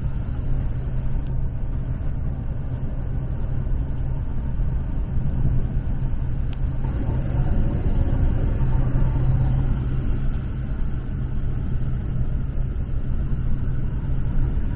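Storm-force wind buffeting a parked motorhome, heard from inside: a continuous deep rush that swells in a stronger gust about midway.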